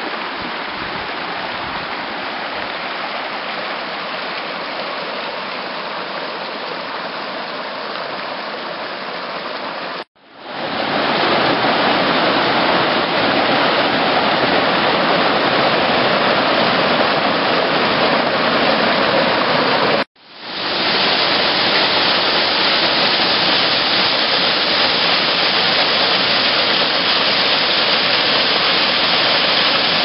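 Steady rushing water of Wairere Falls' mountain stream and cascades. The sound cuts out suddenly twice, and each time it comes back louder.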